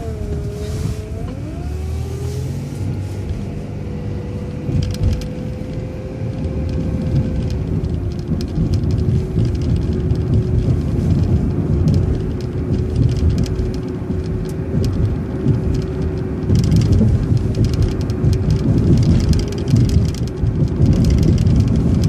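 Transit bus running through a right turn and pulling away: a steady low engine and road rumble with a whine that wavers in pitch for the first couple of seconds, then holds steady and gets somewhat louder toward the end.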